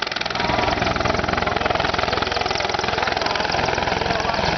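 Mi-24 attack helicopter flying a low pass, its main rotor beating in a fast, even chop over the steady noise of its turbines.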